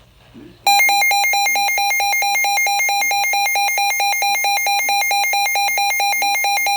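Emergency weather alert alarm: a loud, rapidly pulsing electronic beeping tone that starts under a second in. It signals an incoming warning, here a special marine warning.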